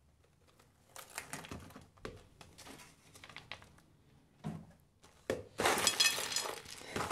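A plastic tub of coloured popcorn is handled with scattered rustles and clicks. About five and a half seconds in, the popcorn spills out all at once in a dense clatter onto a ceramic plate and the worktop, lasting about a second.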